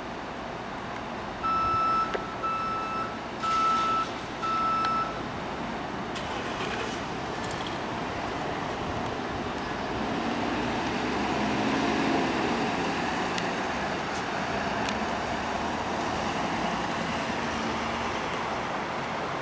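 Four loud electronic warning beeps in the first few seconds, each about half a second long and all at one pitch, of the kind a reversing alarm gives. Then the engine of a Ford box ambulance runs and swells as the ambulance pulls away, with no siren.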